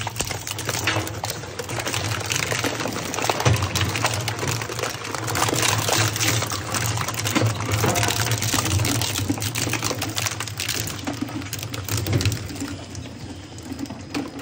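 Twin-shaft plastic shredder running, its cutter discs crunching hard plastic scrap in a dense, rapid crackle over a steady motor hum. The crackle thins out near the end.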